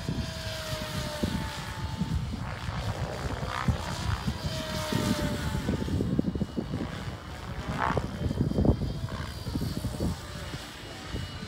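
Mikado LOGO 700 electric RC helicopter in flight: faint steady tones of the motor and rotor that slowly shift in pitch. Heavy wind buffeting on the microphone is the loudest sound.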